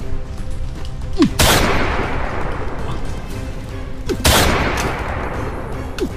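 Two loud, sudden gunshot-like bangs about three seconds apart, each with a long fading tail and each preceded by a short falling tone, over steady background music.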